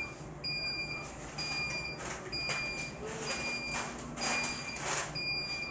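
Heat press timer alarm beeping, short high-pitched beeps about once a second, signalling that the set 30-second pressing time is up. There are a few soft rustles under the beeps.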